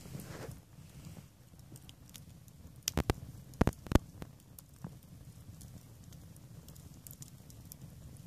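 Wood campfire burning: a low steady rumble of flames with scattered crackles and a quick cluster of loud, sharp pops of burning logs about three to four seconds in.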